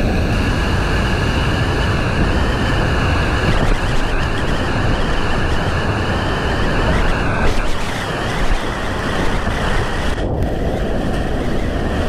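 Loud, steady roar of rushing whitewater, with water and wind buffeting the microphone. Its tone changes abruptly about seven and a half seconds in and again about ten seconds in.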